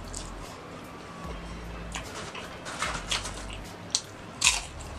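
Ghost pepper potato chips crunching as they are bitten and chewed: a few sharp, crackly crunches in the second half, the loudest about four and a half seconds in, over soft background music.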